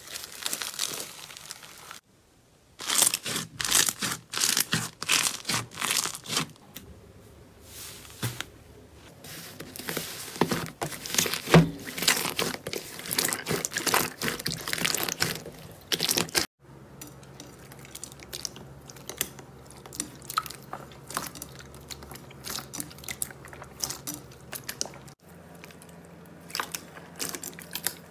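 Hands squeezing and kneading slime, giving quick runs of sticky clicks, crackles and pops. Several separate clips are joined, and the popping is loudest and thickest through the first half.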